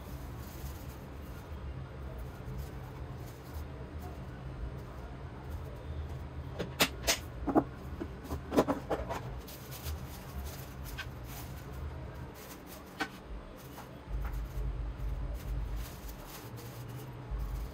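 Kitchen handling noises: a cluster of sharp clicks and knocks about seven to nine seconds in, and single clicks a little later, as the finished rolls are handled and packed for freezing. A low steady hum sits underneath.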